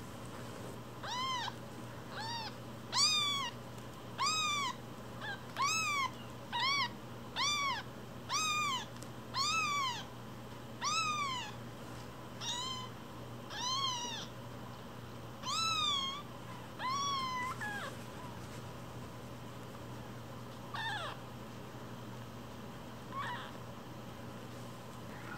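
A week-old kitten crying in high, thin mews, about one a second, each call rising then falling in pitch. The calls stop after about eighteen seconds, and two fainter ones follow near the end.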